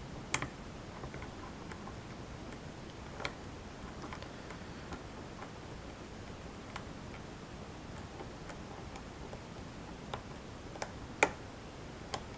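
Lock pick and tension wrench working the pins of a pin-tumbler challenge lock in single-pin picking: sparse, irregular small clicks and ticks, with a sharper click just after the start and another near the end.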